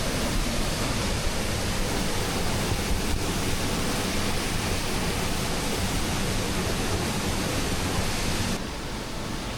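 A two-stage waterfall plunging into a rock plunge pool: a loud, steady rush of falling water. Near the end it drops abruptly to a quieter hiss.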